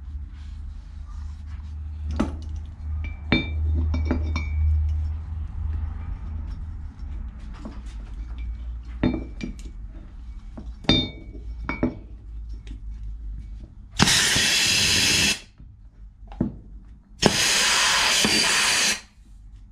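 Two loud blasts of compressed air from an air-hose blow gun on a brake caliper during a seal rebuild, each about a second and a half, near the end. Before them come light metallic clinks and knocks of parts and tools being handled.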